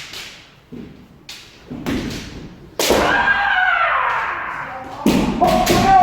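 Kendo practice: sharp knocks of bamboo shinai strikes and stamping footwork, with long, loud kiai shouts starting about three seconds in and again near the end.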